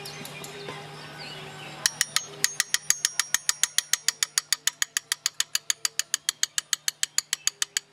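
Metal chisel tapped into a stone tablet, cutting carved lettering: quick, even taps, about seven a second, beginning about two seconds in.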